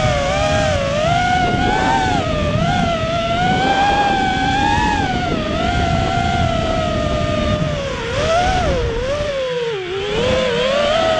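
Racing quadcopter's four Emax 2205 2600kv brushless motors spinning DAL 5045 three-blade props, heard from on board as a loud whine whose pitch rises and falls with throttle. Near the end the pitch dips sharply as the motors slow, then climbs back.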